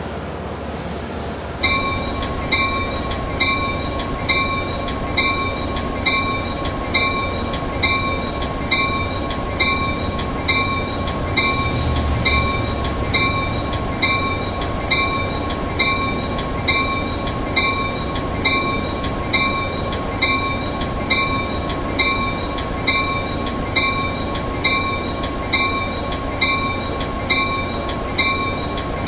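EMD locomotive steel bell ringing steadily, about one strike a second, each strike leaving a bright ringing tone. It starts under two seconds in, over a steady low background noise.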